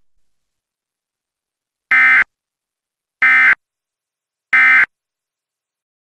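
Three short bursts of Emergency Alert System SAME digital data, each about a third of a second long and about 1.3 seconds apart: the end-of-message code that closes the alert.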